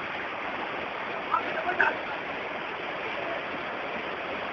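Steady rushing of heavy rain and floodwater, an even hiss, broken by a couple of short calls about a second and a half in.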